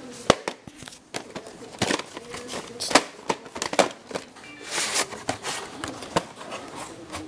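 Plastic VHS tape cases being handled: a string of sharp clacks and knocks, with a short rustle of plastic about five seconds in.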